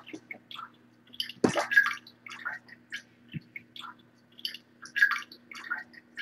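Short, scattered drip-like plinks and blips from a cat game app on a tablet, over a steady low hum. One louder knock comes about one and a half seconds in.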